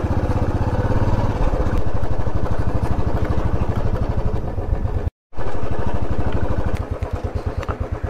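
Motorcycle engine running steadily with a clear beat of firing pulses. It is broken by a brief dead-silent gap about five seconds in, and near the end the engine gets quieter as the revs come down.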